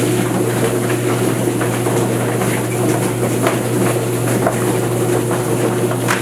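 An electric motor running steadily at a low, even hum, with scattered light clicks and knocks on top.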